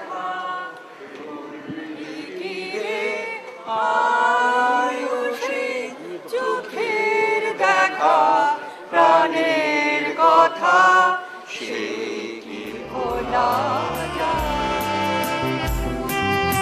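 A group of men singing together without accompaniment. About twelve seconds in, instrumental music with a bass line takes over.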